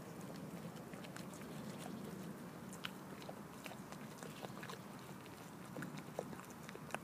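A German Improved White goat chewing a piece of hard bread, with irregular sharp clicks as her jaws work the crust.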